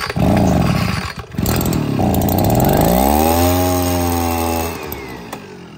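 Small two-stroke engine of a DMD3003 leaf-blowing unit running after a pull start. It revs up about two seconds in, holds at high revs, then drops back to a lower, quieter run near the end.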